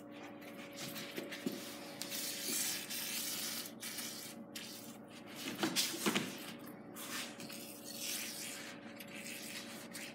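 Aerosol lubricant spraying onto garage door hinges and rollers: long hissing sprays broken by several short pauses, with a few light knocks around the middle.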